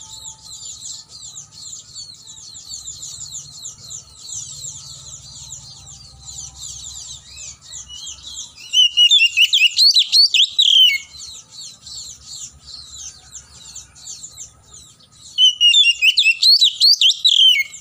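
Oriental magpie-robin singing: loud bursts of fast whistled, chattering phrases about nine seconds in and again near the end, over continuous rapid high twittering.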